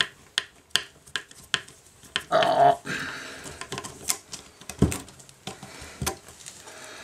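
A screwdriver working on the screws of brass wire clamps makes a run of evenly spaced sharp clicks, about three a second. Then, about two seconds in, comes a short pitched voice-like sound, the loudest thing, followed by a few scattered knocks.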